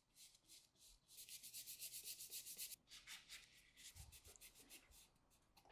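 Faint, quick back-and-forth rubbing on a stretched canvas, about ten strokes a second at its busiest: a bristle brush scrubbing in thin oil paint, then a paper towel wiping paint off to clear the spaces where light colours will go.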